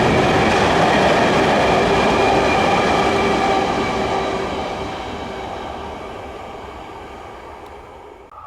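A train passing on the main line, with steady whining tones over the rolling noise. It is loud at first, then fades away over the last few seconds.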